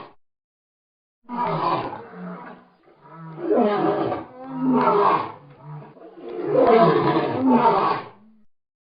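Ethiopian lion roaring: after about a second of silence, a run of four roars, each a second or two long, the last the longest and loudest.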